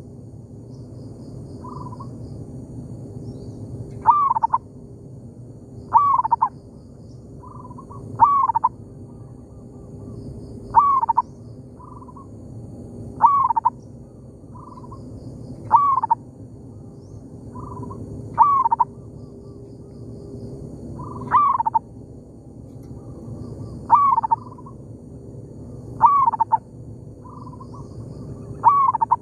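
Zebra doves cooing back and forth: one bird repeats a short, loud cooing phrase about every two and a half seconds, and a fainter dove answers in the gaps between.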